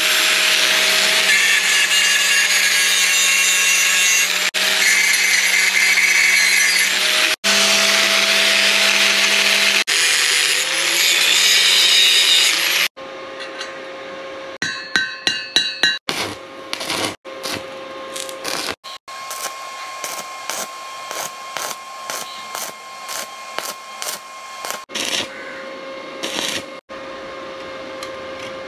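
Electric angle grinder grinding a sheet-metal propeller blade, running steadily with a few brief breaks, then stopping about halfway through. After that comes a much quieter stretch: a faint steady tone with scattered sharp clicks.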